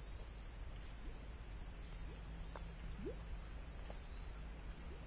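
Insects chirring steadily in a high-pitched, even buzz, with a few faint short rising chirps over it.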